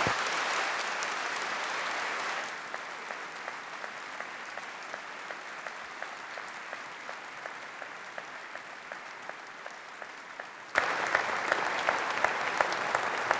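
Audience applauding. It is dense at first, drops to quieter clapping with single claps standing out after about two and a half seconds, then suddenly grows louder again with sharp individual claps near the end.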